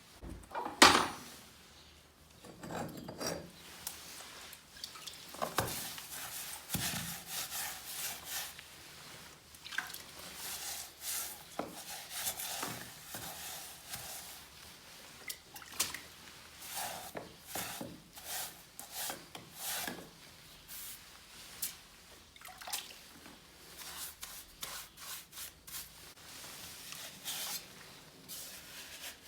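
A hand tool scraping on masonry and mortar in short, irregular strokes.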